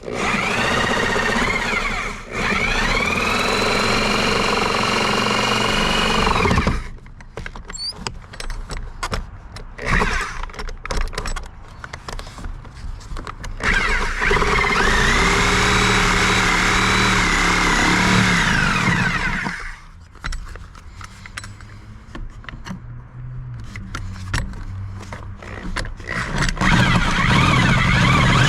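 Reciprocating saw cutting into wood in several runs of a few seconds each. The motor whine rises as each run starts and falls as it stops. Between runs there are knocks and clatter from the saw and the wood.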